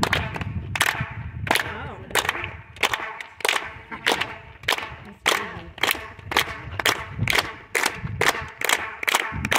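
A small group clapping hands in unison, each clap followed by a short ring of echo off the stone tiers of the ancient theatre at Epidaurus. The claps come about one and a half a second at first, then quicken to about three a second after about six seconds.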